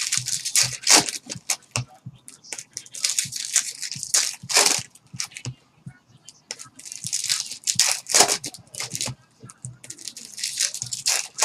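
Plastic wrap and cardboard of a sealed trading-card box being torn and crinkled in irregular scratchy bursts as the box is worked open.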